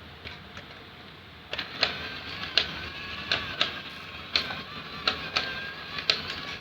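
Small electric motors of a radio-controlled excavator whining as it works, starting about a second and a half in and cutting off abruptly at the end, with irregular sharp clicks from its moving parts.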